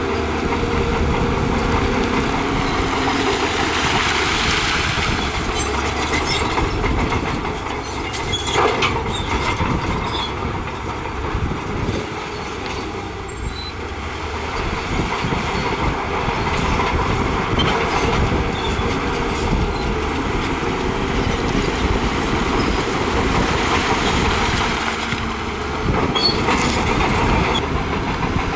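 Shantui crawler bulldozer working, its diesel engine running under load and its steel tracks clattering as it pushes rock and soil. Now and then a sharp knock of rock against the blade or tracks.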